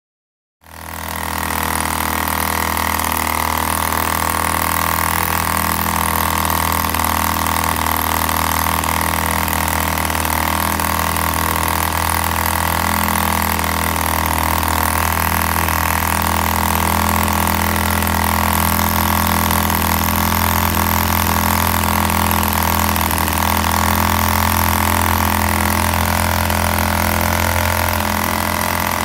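Homemade replica of a 1945 Thorning Monsun two-stroke model diesel engine running steadily at an even speed. The sound cuts in abruptly about half a second in.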